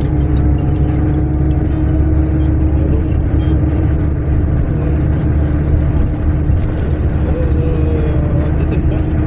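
Natural-gas city bus heard from inside the cabin while driving: a steady low engine and road rumble with a steady hum that cuts off near the end.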